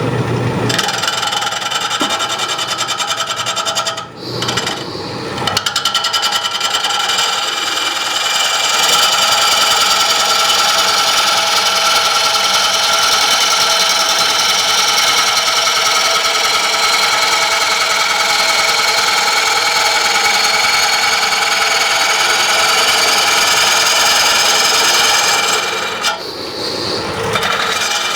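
A turning tool cutting a spinning green-wood bowl blank on a wood lathe: a steady cutting noise with a steady whine, as the blank is trued to take out its wobble. The cut breaks off briefly about four seconds in and again near the end.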